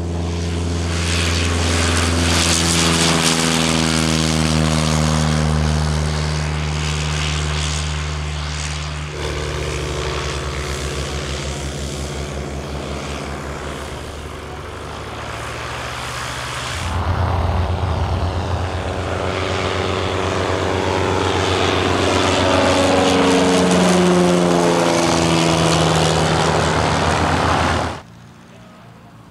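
Bücker 131 Jungmann biplane (Tatra T.131PA) with its LOM M332AK four-cylinder inline engine and propeller running at high power on the take-off run and climb, the pitch falling as it passes. It is heard again on a low flyby, pitch falling as it goes past, then the sound drops to a much quieter level near the end.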